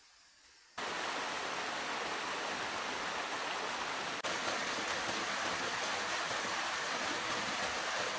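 Small jungle waterfall and rocky stream rushing: a loud, steady hiss of falling water that cuts in sharply about a second in.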